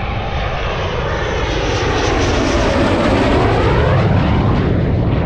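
Fighter jet on final approach with its gear down: a steady, loud jet-engine roar with a sweeping whine that falls and rises again as it passes, growing louder toward the end.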